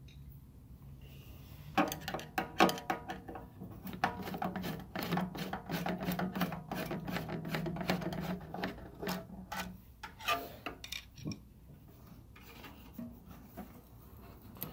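Repair work on a tankless water heater: a busy run of clicks and scraping, like parts and tools being handled and rubbed, from about two seconds in to about ten seconds in, then only a few scattered clicks, over a low steady hum.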